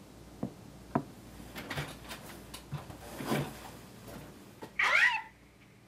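A desk phone handset set down, with two sharp knocks, then the rustle and shuffle of someone getting up from an office chair and walking off. Near the end comes a short, high, wavering squeal that falls away at its end.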